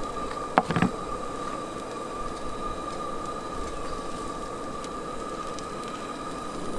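Camp Chef Mountaineer propane stove burning under a frying pan of cooking quesadilla, a steady hiss with a faint steady tone through it. Two quick clinks of a utensil against the pan come a little under a second in.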